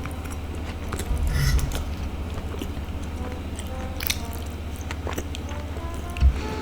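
Close-miked chewing of a sticky glutinous rice ball, with a louder wet squish about a second in, a few sharp clicks around four seconds and a soft thump near the end.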